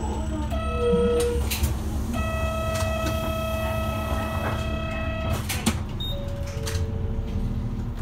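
City route bus running in slow town traffic, its engine a steady low rumble. Several steady electronic tones sound over it: a short note just before a second in, a long note held for about three seconds, then two falling notes near the end.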